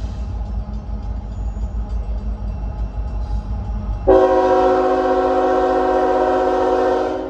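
A low rumble, then about four seconds in a diesel locomotive's multi-chime air horn sounds one long blast of about three seconds, several steady tones at once, before trailing off.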